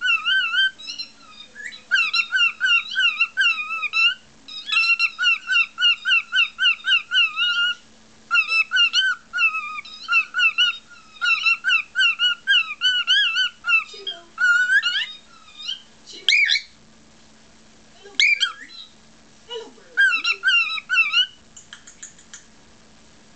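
Cockatiel chirping in fast runs of short, bouncing chirps, about six a second, broken by short pauses, with two sharp rising calls about two thirds of the way through.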